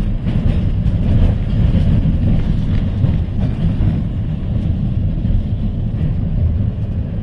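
Heritage tram running along the track, heard from inside the car: a steady low rumble of wheels on rail with scattered clicks and rattles.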